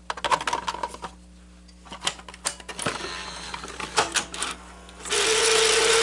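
Clicks and plastic clatter of an empty Betamax cassette shell being handled and fitted into a Sony SL-5000 Betamax VCR, then about five seconds in a loud steady motor whir with a steady hum as the machine's mechanism starts to run.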